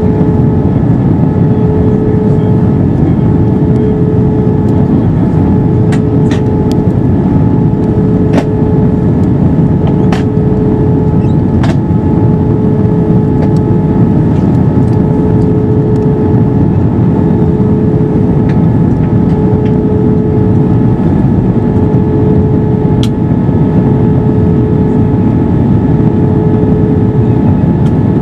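Cabin noise of an Airbus A321 in flight: a steady, loud roar of its CFM56 engines and the airflow, with a constant droning tone over it. A few faint clicks of the cabin come through now and then.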